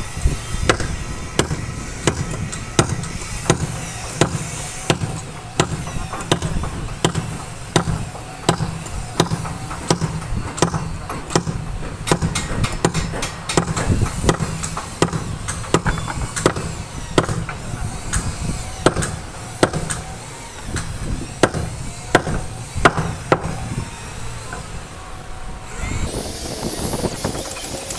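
Repeated sharp knocks of hammering on heavy timber, about one to two blows a second at an uneven pace, over a steady low rumble. The blows stop shortly before the end.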